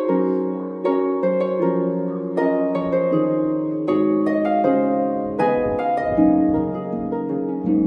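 Background music: a gentle plucked-string melody, harp-like, over sustained lower notes. Each note rings and fades, and new notes come about two or three a second.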